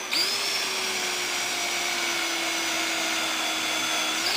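Power drill boring a small pilot hole into wood through a brass hinge's screw hole, the motor running at a steady speed with an even whine; it grows louder and harsher near the end.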